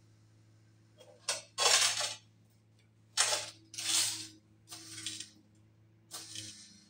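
Homemade hydraulic press brake bending a long rusty steel plate: a steady hum from the hydraulic pump, under about six short crackling, clinking bursts spaced roughly a second apart as the plate bends.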